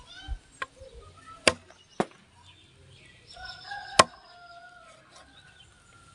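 A curved billhook knife chopping country-chicken pieces on a wooden log: three sharp chops, the loudest about four seconds in. A rooster crows in the background during the second half.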